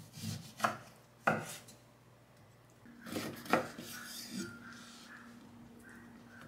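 Handling noise: a few sharp knocks with rubbing between them, then a low steady hum starting about three seconds in.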